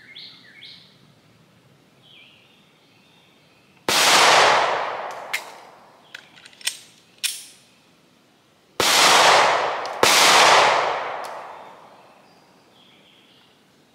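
Three shots from a Glock 43X 9 mm micro-compact pistol, each a sudden bang with a long echoing tail. The first comes about four seconds in, then two more close together about a second apart near nine and ten seconds in. Quieter sharp clicks come between the shots, and birds chirp at the start.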